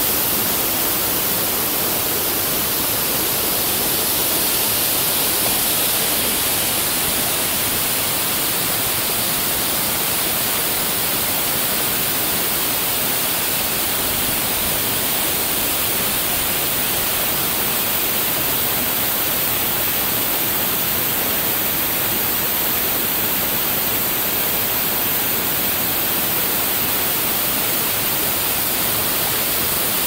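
Steady, loud rush of a tall waterfall pouring down a rock face into a pool, heavy in hiss.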